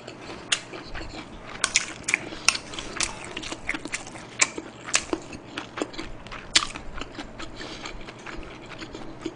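Close-miked chewing with irregular sharp mouth clicks, and a metal spoon clinking in a stone pot of soup.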